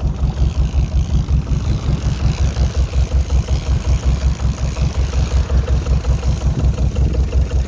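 Fishing boat's engine running steadily under way, with a fast, even low throb.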